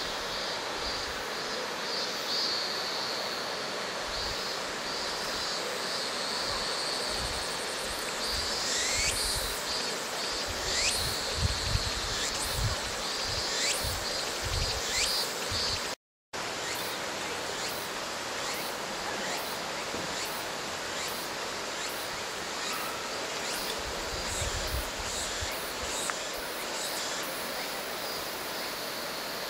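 Steady rush of a mountain river, with a high pulsing insect buzz and, in the middle, a run of quick rising chirps about a second apart. The sound breaks off briefly about halfway through.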